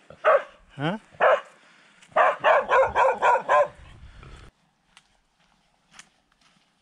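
A dog barking: a few single barks, then a quick run of barks, stopping about four and a half seconds in. After that, faint footsteps crunching in snow.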